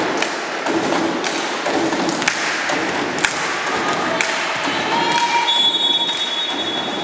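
Sharp thuds about once a second, echoing around a sports hall, over a murmur of voices; a steady high tone comes in near the end.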